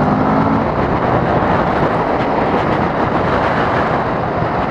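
Kawasaki Vulcan S's 650cc twin-cylinder engine pulling under acceleration. Its steady note fades in the first second into an even rush of wind and road noise at speed.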